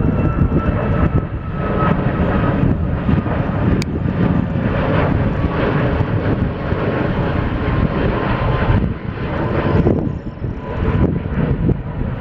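A Boeing 737 MAX's two CFM LEAP-1B turbofans at climb-out power after takeoff: a loud, ragged jet roar with a whining tone that slowly falls in pitch as the jet passes overhead and draws away.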